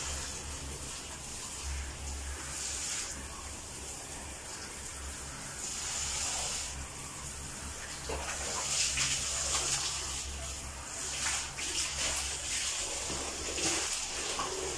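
Handheld shower head spraying water onto a small dog standing in a plastic bucket, the hiss of the spray rising and falling and loudest about halfway through. A steady low hum runs underneath.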